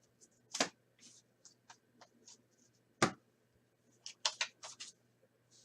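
Trading cards being handled: short scrapes and clicks as cards slide over one another, with a sharper one about half a second in, another about three seconds in, and a quick run of them near the end.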